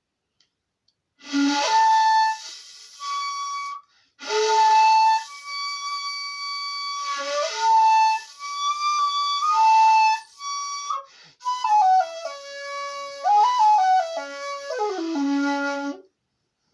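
Shakuhachi played solo in a slow melody of held notes, each with a breathy attack, some bent in pitch. There are short breaks between phrases, and the last phrase steps down to a low held note.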